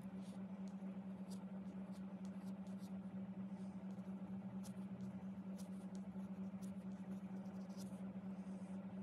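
A steady low hum, with faint scratching and light ticks of a graphite pencil working on card.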